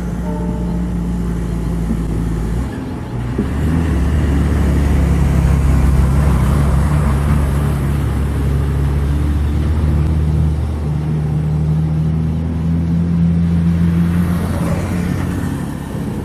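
Diesel locomotive engine running steadily as it hauls a passenger train past, with a deep drone whose pitch steps up about three seconds in and again near the middle. A short horn note sounds right at the start.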